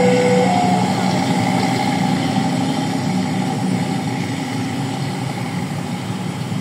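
A heavy engine running steadily, slowly getting quieter. A two-tone electronic signal stops about half a second in.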